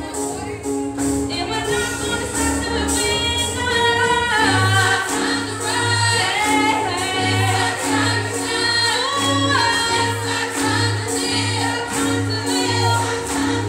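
A small vocal ensemble singing a slow song in harmony, several voices moving together with vibrato, over keyboard accompaniment with a steady pulsing bass.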